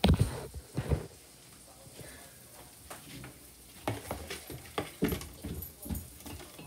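Banana pancake batter frying in a pan. Two loud knocks about a second apart come as the recording phone is handled and set down, then a run of light clicks and taps from about four seconds in.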